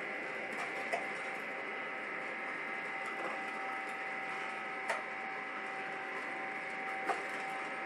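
Gene Cafe CBR-101 home coffee roaster running with a steady whine, with three sharp snaps about a second in, about five seconds in and near the end: coffee beans popping in the drum during first crack, a sound like snapping twigs.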